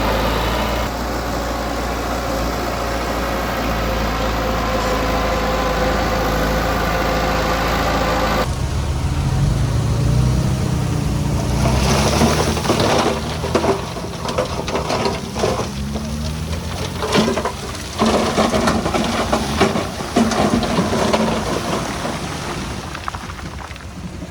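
Heavy diesel earthmoving machinery: an engine running steadily, then, after an abrupt cut about eight seconds in, an engine working under load with repeated clattering knocks of stone and dirt being moved.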